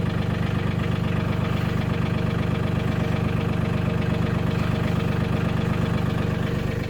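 Mahindra 1626 tractor's three-cylinder diesel engine running steadily.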